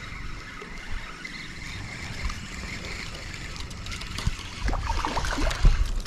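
River water trickling and lapping at the bank, with wind on the microphone. Near the end it turns to louder, irregular splashing as a goldeye is pulled in to the shore.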